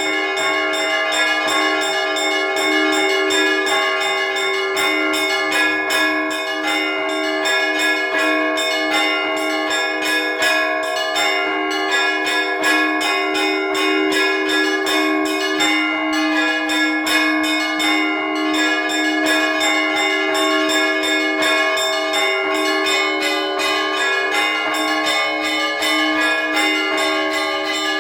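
Orthodox church bells rung in a trezvon: many bells struck in rapid, continuous rhythm, small high bells chiming quickly over the steady strokes of deeper bells.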